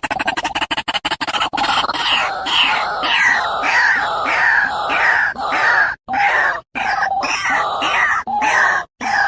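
Fast pulsing clicks for about the first second and a half, then a run of harsh, repeated animal calls, about two a second.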